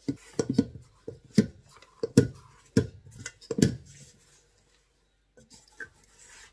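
Hands folding and pressing a sticky poolish dough of bread flour, yeast, salt and water in a stainless steel mixing bowl. About six dull thuds come in the first four seconds, then quieter handling.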